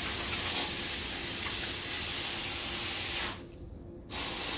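Garden hose spraying water into a concrete kennel floor drain to rinse it out: a steady hiss of spray that cuts out for under a second about three seconds in, then starts again.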